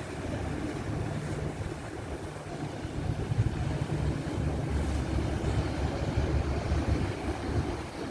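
Low rumbling noise of wind buffeting the microphone, mixed with the sound of a small passenger ferry and its wake passing close by on harbour water. The rumble grows louder for a few seconds in the middle.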